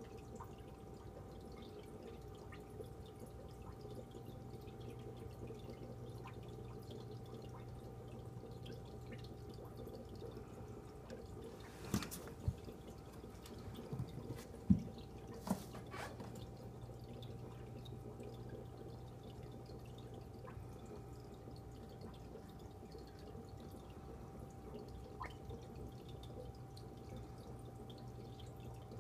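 Aquarium water trickling and dripping steadily, the sound of the tank's filter return, over a low steady hum. A few sharp knocks come about halfway through.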